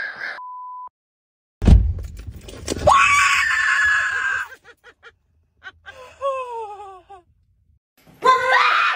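Women screaming in fright at a scare prank: a short beep and a loud thump, then a long scream, a shriek that falls in pitch, and another scream near the end.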